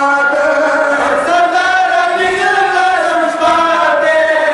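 Men chanting a noha, a Shia lament for Imam Hussain, together into microphones. The voices hold long, slowly gliding notes without a break.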